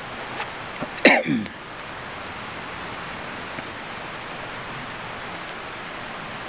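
Steady rushing outdoor background noise, with a brief loud sound falling in pitch about a second in and a few faint, high chirps.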